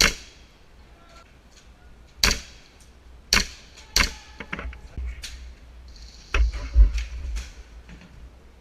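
Airsoft guns firing single shots: sharp, irregularly spaced cracks, the loudest four in the first four seconds, then fainter shots and a few low knocks of movement on the camera.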